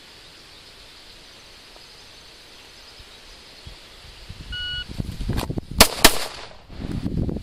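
A shot timer's short electronic beep, then the rustle of a pistol being drawn from a Kydex holster, and a quick pair of pistol shots about a third of a second apart, which are by far the loudest sounds.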